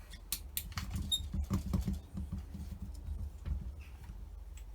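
A wrench or screwdriver working tight bolts on a Holley four-barrel carburettor: scattered small metallic clicks and taps, with a brief squeak about a second in.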